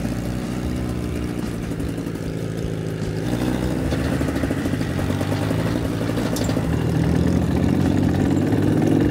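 Motorcycle engine running at low, steady revs while riding slowly over rough ground. The engine note steps up about three seconds in and grows a little louder toward the end.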